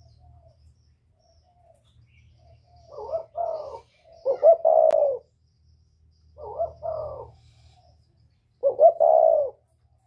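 Spotted dove singing its cooing song twice, each time two short coos followed by a longer coo. A faint low hum runs underneath, and there is a single sharp click about five seconds in.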